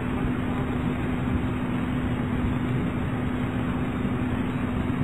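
Steady background noise, an even hiss with a constant low hum, with no other event.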